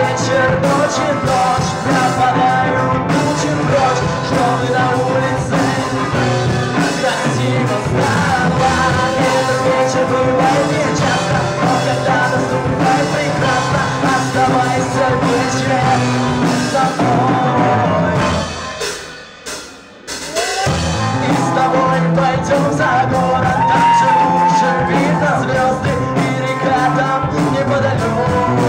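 Rock band playing a slow love song live, with a singer over guitar, bass and drums. About two-thirds through, the band falls almost silent for a couple of seconds, then comes back in.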